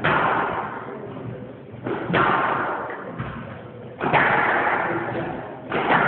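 Squash rally: four sharp hits of the ball off racket and walls, about two seconds apart, each one echoing and dying away.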